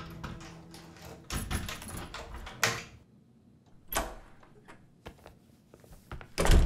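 Pages of a book rustling as they are turned, with short sharp flicks, then a door opening with a loud thud near the end.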